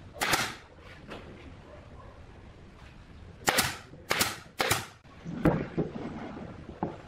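Pneumatic nail gun firing four times into wood: once near the start, then three sharp shots in quick succession about three and a half seconds in, each with a short hiss of air. A few duller wooden knocks follow near the end.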